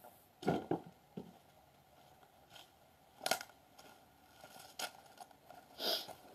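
Three sharp knocks of kindling being chopped with a hatchet on a wooden block, within the first second and a half. After that come a few quieter scattered thumps and rustles.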